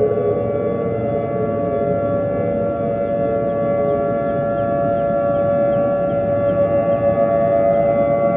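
A civil-defense-style siren sounding a long, steady tone with several overtones, its pitch holding nearly constant.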